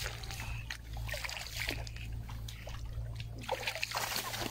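Light, irregular water splashing and trickling over a steady low hum.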